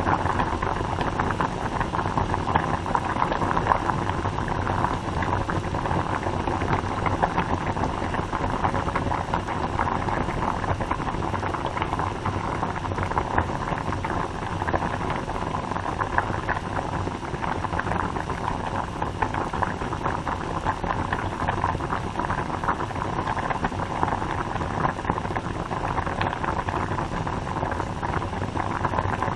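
A pot of water boiling on the stove: steady, dense bubbling with many small pops, even throughout.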